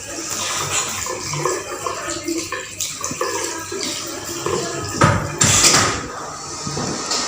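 Tap water running and splashing at a sink during handwashing, uneven throughout, with a louder surge of water about five seconds in.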